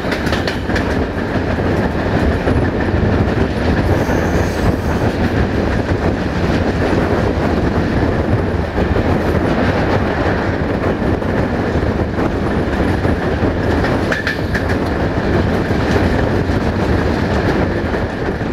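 Passenger train's wheels running on the track at speed: a steady rumble with the clickety-clack of rail joints.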